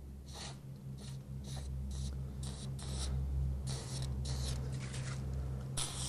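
Hands working at a garage door roller and hinge: a run of short scratchy rubbing sounds, about two a second, over a steady low hum.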